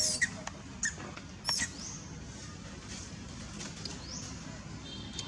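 A few short, high-pitched animal squeaks with quick pitch slides in the first two seconds, then a faint steady outdoor background with an occasional faint rising chirp.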